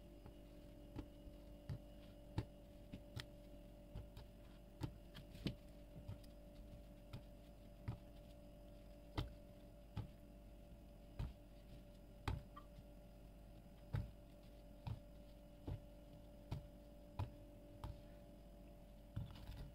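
Light, irregular clicks of a metal spoon against a stainless steel pot, about one a second, as fried gulab jamuns are slid one by one into the sugar syrup, over a faint steady hum.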